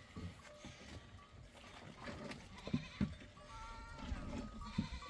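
Penned flock of livestock bleating, several wavering calls mostly in the second half, with a few dull knocks about halfway through.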